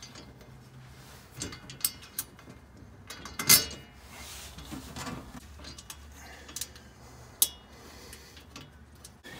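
Metal parts of a MORryde slide-out kitchen frame being fitted by hand: scattered clicks and clanks of metal on metal as a stopper plate is set against the slotted side panel, the loudest about three and a half seconds in and a sharp one a little past seven seconds.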